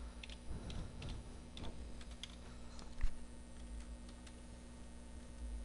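Faint, irregular keystrokes and clicks of a computer keyboard, with one louder click about three seconds in, over a steady low hum.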